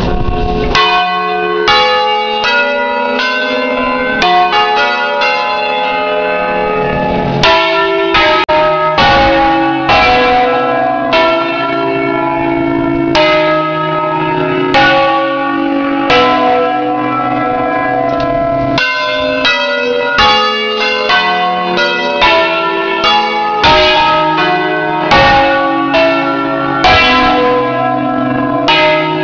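A ring of eight swinging church bells in C (tenor Do3), rung in the Ambrosian style, pealing together in a solemn concerto played by hand from the bell controller: a dense run of clapper strokes, one or two a second, each ringing on under the next. Heard close up inside the belfry, loud.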